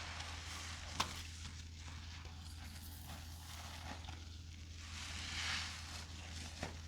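Soapy sponges being squeezed and worked in a foamy mix of scouring powder, detergent and bath soap: wet squishing and crackling, with a sharp click about a second in and a louder squelch a little after five seconds, over a steady low hum.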